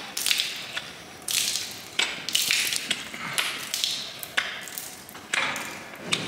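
Hoof knife being sharpened: about eight short metal-on-metal scraping strokes at irregular intervals, each starting sharply and fading quickly.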